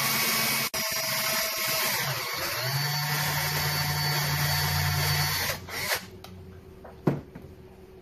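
Cordless drill running as its bit bores a pin hole through a metal A2 front sight block, with a brief break about a second in and a dip in pitch a little later as it loads. The drill stops after about five and a half seconds, followed by a single knock.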